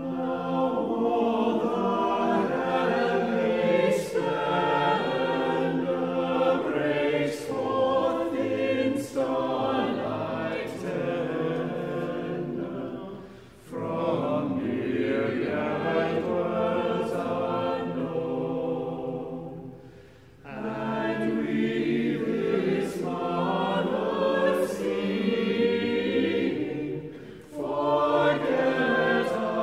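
A cappella choir singing, coming in at the start and breaking off briefly between phrases three times.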